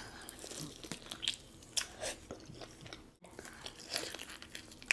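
Close-miked crunchy bites into a sauced fried chicken wing and chewing: the crisp skin crackles in several sharp crunches between stretches of softer chewing.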